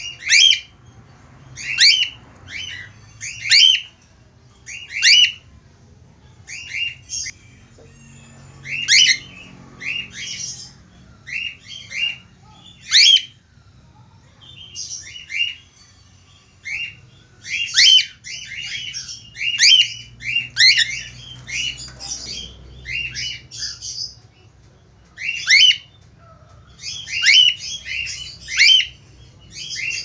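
Cockatiel calling to a female with short, sharp, whistled chirps, one every second or so, bunching into quicker runs about halfway through and again near the end.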